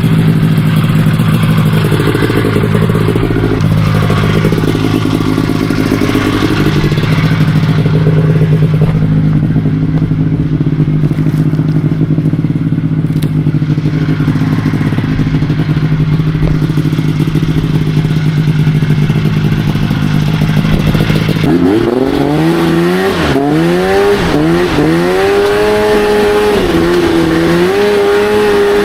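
Crosskart buggy engine running at a steady speed, then from about twenty seconds in revving repeatedly, its pitch rising and falling.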